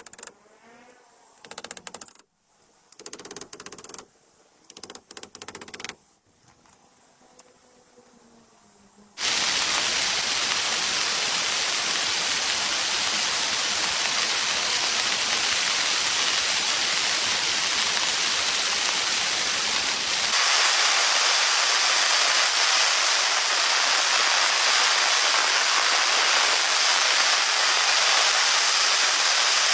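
A few short bursts of quick tapping and knocking, then heavy rain comes in suddenly about nine seconds in as a steady hiss, growing louder and brighter about twenty seconds in.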